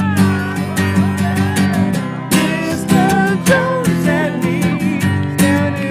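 Background music: a song with strummed acoustic guitar and a singing voice, with a steady beat.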